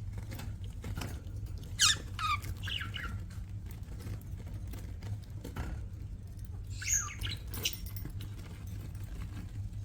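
Budgerigars chirping in short, quickly falling calls, with two clusters about two and seven seconds in. Under them run faint scratchy clicks and a steady low hum.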